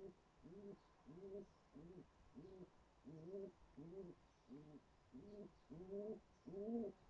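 Pigeon cooing: a steady run of short, low, arching coos, about two a second, faint at first and getting louder toward the end.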